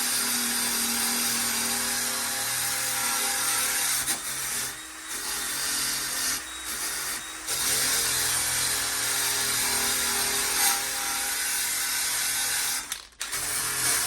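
Power tool scouring surface rust off a pitted steel car splash guard, running steadily with a hiss over a motor hum. It eases off briefly a few times and stops for a moment near the end before starting again.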